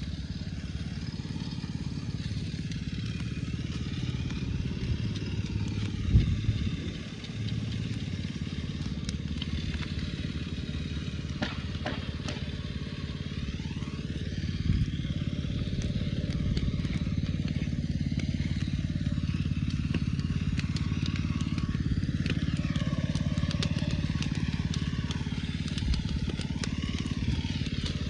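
Concrete pump truck's engine running steadily during a slab pour, with a sharp knock about six seconds in and another near the middle.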